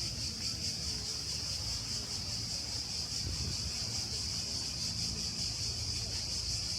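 Cicadas buzzing in the trees, a steady, high, rapidly pulsing chorus, over a low outdoor rumble.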